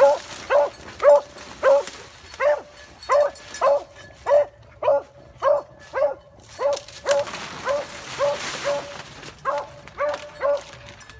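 Hunting beagle baying on a rabbit's trail: a steady run of short barks of one even pitch, about two a second.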